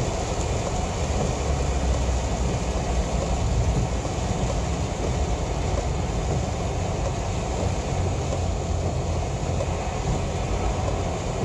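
Inside a car driving in heavy rain: a steady low rumble of the car and its tyres on the wet road, with an even hiss of rain and spray on top.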